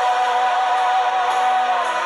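Christian worship music with choir singing; one long note is held and breaks off near the end.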